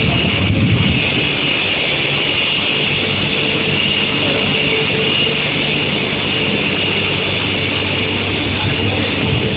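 Induction heating line for quenching and tempering square steel bar, running: a steady high whine over a constant mechanical rumble.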